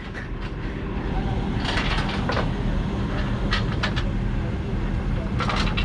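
A truck engine idling steadily, a low hum, with a few short faint knocks or voices over it.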